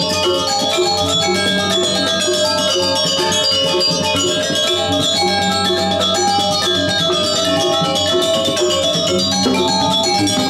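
Balinese gamelan pelegongan ensemble playing: bronze metallophones ringing out a busy melody of many short, quick notes over a pair of kendang hand drums, with steady percussive strokes throughout.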